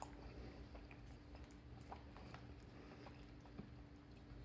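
Near silence with faint chewing and small mouth clicks from someone eating, over a faint steady hum.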